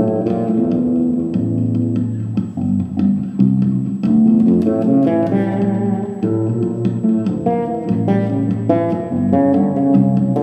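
Fender Jazz fretless bass playing a plucked gypsy-jazz line, with several layers of notes sounding at once: live playing over bass loops played back by a Boss RC-20 loop station.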